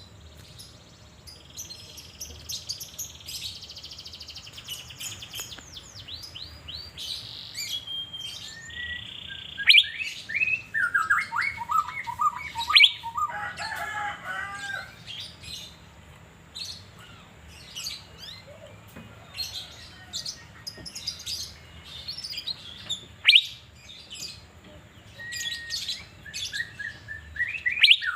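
Asian fairy-bluebird (cucak biru) singing: a varied run of sharp chirps, short whistles and quick descending note runs, busiest around the middle and again near the end.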